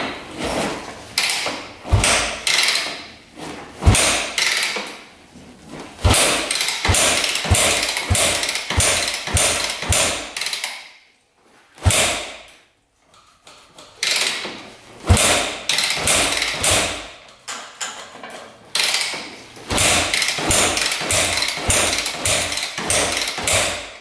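2001 Yamaha WR250F four-stroke single being kick-started over and over with the choke on, each kick a sharp knock followed by a few quick compression strokes as the freshly rebuilt engine turns over without catching.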